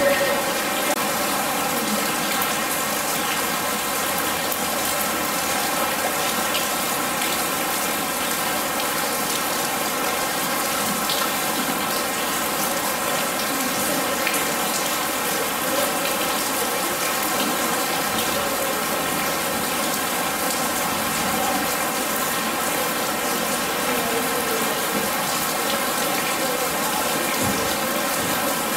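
Artificial rain in an indoor art installation falling steadily on a corrugated-metal shack and the wet floor around it, an even, continuous patter and hiss.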